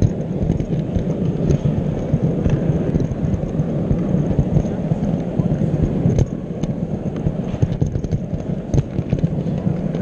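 O gauge model train running along the layout's track, heard from on board: a steady rumble of its motor, gears and wheels on the rails, with many small clicks.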